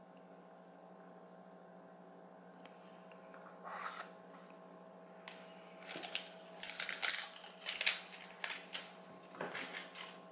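Small plastic jars of nail powder being handled and set down: a scatter of light clicks and rustles starting a few seconds in, over a steady low electrical hum.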